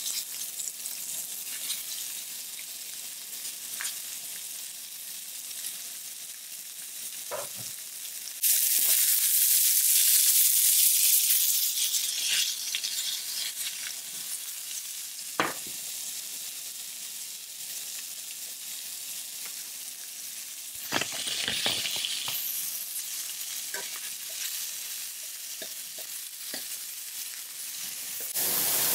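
Seasoned chicken pieces sizzling as they fry in a very hot pan. The sizzle flares up loudly about eight seconds in and briefly again around twenty seconds, with a few light knocks of utensil or pan in between.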